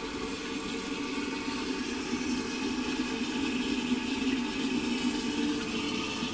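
Water running steadily into an old rusted iron STOM Cardiff cistern as it fills: a continuous rushing hiss with a rumble underneath.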